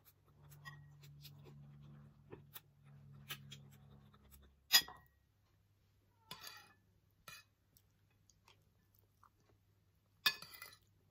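A metal spoon and fork clinking and scraping on a ceramic plate while scooping fried rice, with quiet chewing between bites. A sharp clink just under five seconds in and a short run of scrapes near the end are the loudest sounds; a faint low hum runs through the first few seconds.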